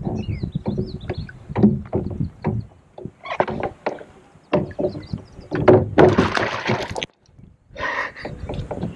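Irregular knocks, clunks and rattles of a paddle and gear being handled on a fishing kayak, with a louder, denser clatter about six seconds in that cuts off suddenly.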